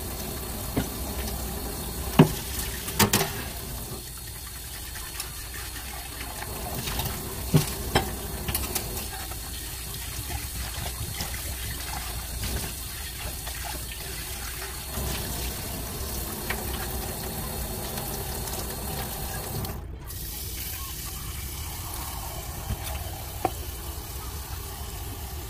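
Kitchen tap running steadily into a stainless steel sink during hand dish-washing, with a few sharp clinks of crockery knocking against the sink in the first eight seconds.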